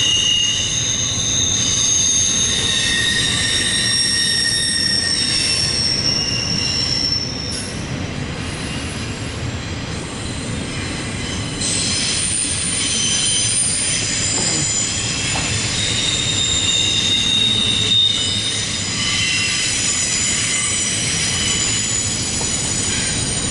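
Freight train wheels squealing as CSX intermodal container cars round a curve out of a wye. Several high squeals hold and change pitch over the steady rumble of the cars rolling by.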